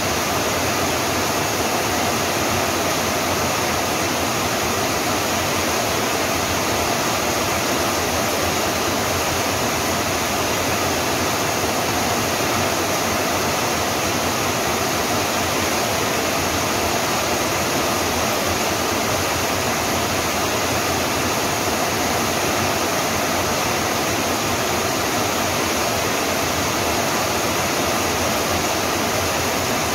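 Steady rain falling as an even, unbroken hiss, with no separate drops, thunder or other events standing out.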